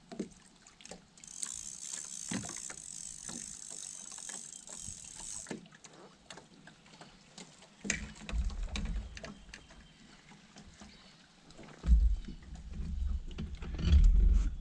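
Small fishing boat afloat, with water lapping and small knocks against the hull, a high hiss for a few seconds near the start, and heavy wind rumble on the microphone in the second half, beginning with a sharp gust or knock.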